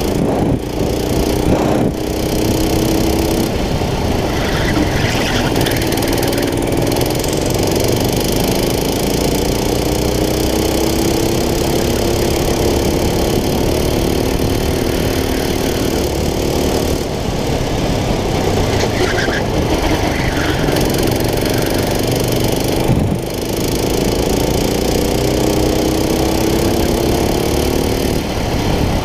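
Go-kart engine running hard through a lap, heard from on board: its pitch climbs slowly along the straights and drops sharply when the driver lifts off for corners, most plainly about two seconds in and again near 23 seconds.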